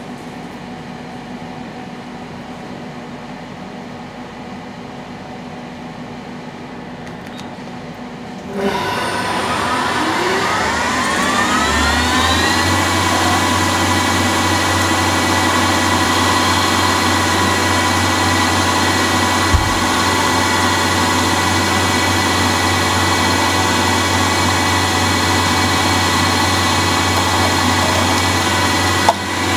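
CNC lathe running with a steady hum. About nine seconds in, its spindle spins up with a rising whine that levels off about three seconds later into a steady whine of several tones as it dry-turns a brass pin. A sharp click comes just before the end.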